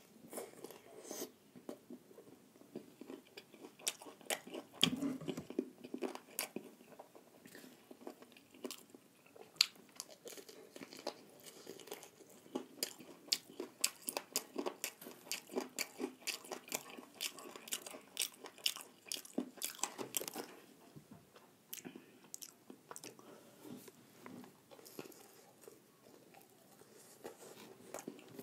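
A person eating a fried chicken lollipop close to the microphone: biting, chewing and pulling the meat off the bone, with many short sharp crunches and clicks, densest in the middle.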